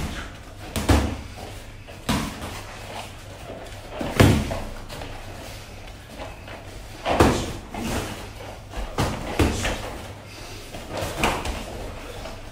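Kickboxing sparring: punches in boxing gloves and kicks against shin guards landing as irregular slaps and thuds, about nine of them spread unevenly, the hardest about four and seven seconds in.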